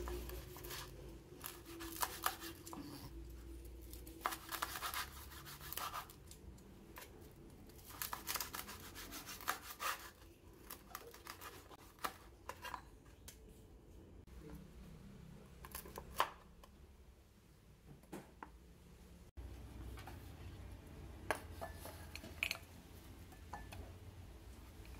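Cleaver cutting through roast pork with crisp skin on a bamboo cutting board: a string of separate crunching cuts and knocks of the blade against the wood, ending with the blade scraping the cut pieces off the board.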